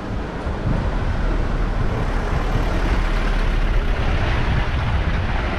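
A box truck driving slowly past close by, its engine and tyres making a steady rumble over street traffic noise.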